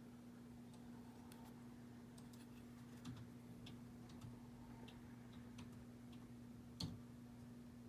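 Near silence with a low steady hum and scattered faint clicks and taps, the loudest about seven seconds in: plastic PCGS coin holders being handled.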